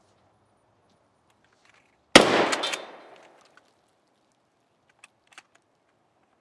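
A single shotgun shot about two seconds in, its report dying away over about a second. Near the end, two light sharp clicks as the shotgun's action is worked to load a shell.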